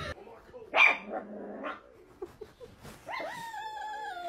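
A dog barks once sharply about a second in. About three seconds in it gives a long, drawn-out howl that drops slightly in pitch.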